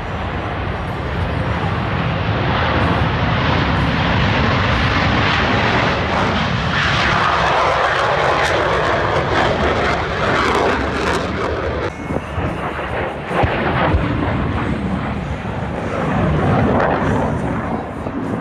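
Aircraft engine noise from an airplane passing overhead, a steady roar that grows loudest about seven to eleven seconds in. The sound changes abruptly about twelve seconds in.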